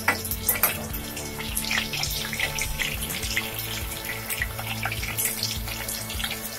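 Small whole potatoes frying in hot oil in a kadai over a high flame, a steady crackling sizzle as they brown, with a spatula turning them; background music underneath.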